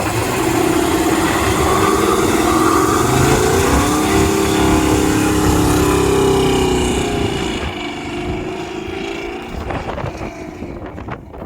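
A motor vehicle engine running and revving, its pitch rising and falling, fading somewhat in the last few seconds.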